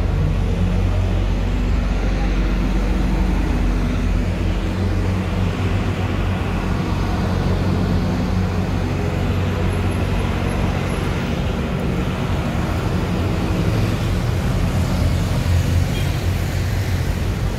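City street traffic: cars and buses passing, a steady low rumble of engines and tyres.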